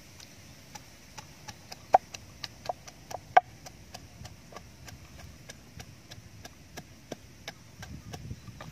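Pestle pounding red chillies in a clay mortar: quick, even knocks about four a second, with two harder strikes about two and three and a half seconds in.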